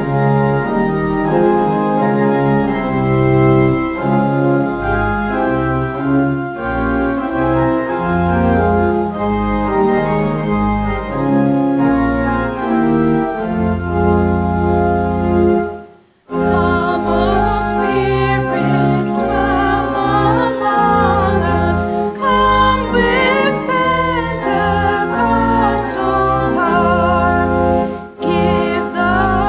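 Organ playing slow, sustained chords, which cut off abruptly about halfway through. After a brief silence a different piece of music starts, with a singing voice with vibrato over the accompaniment.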